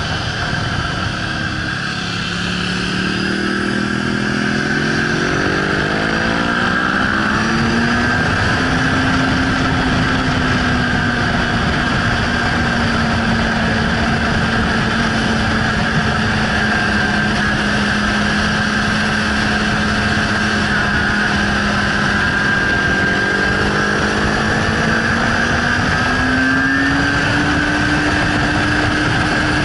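Suzuki GSR 600's inline-four engine pulling hard on track, its note climbing for the first several seconds as the bike accelerates, then holding steady at speed and climbing again near the end. A steady rush of wind runs under it.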